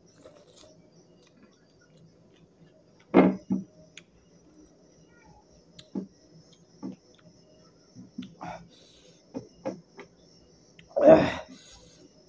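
Close-up eating sounds of a person eating goat meat and rice by hand: lip smacks and chewing noises in short separate bursts, a pair a few seconds in, several smaller ones through the middle, and the loudest near the end.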